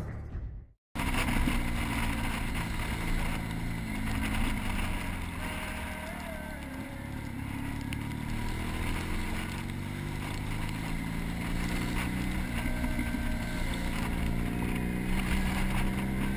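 Motorcycle engine running at motorway speed, heard from a helmet-mounted camera, with steady wind and road noise over it; the engine pitch rises and falls a little. It starts about a second in.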